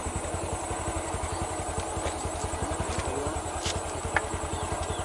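A small engine idling with a steady, even low pulse of about a dozen beats a second, like a motorcycle at idle. A few faint high chirps come in over it.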